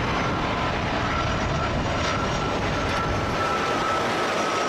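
Airliner engines running steadily: an even rushing noise with a thin, high whine held over it.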